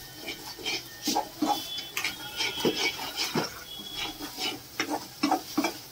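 Metal spatula scraping and knocking against a black frying pan in irregular strokes, stirring onions and spice masala as the spices are fried.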